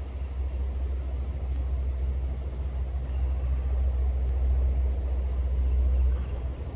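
A low, steady rumble with a faint hiss above it, from outdoor field audio over floodwater. It eases off slightly near the end.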